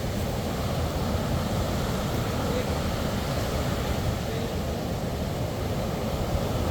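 Sea waves and surf washing onto a beach in a steady, unbroken wash, with a low rumble underneath.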